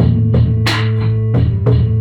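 Funk band playing live: a drum kit keeps a steady groove of kick, snare and cymbal hits, about three a second, over sustained bass notes and guitar.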